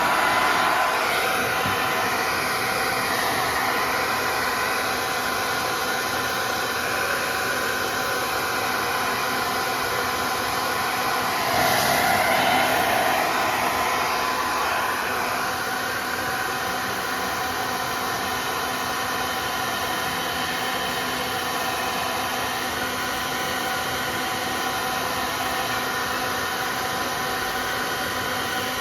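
Handheld hair dryer running steadily: rushing air with a whine from its fan motor. It gets briefly louder about twelve seconds in.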